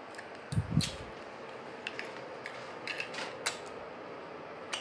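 Handling noise of a handheld phone: two dull thumps about half a second in, then scattered small clicks and taps.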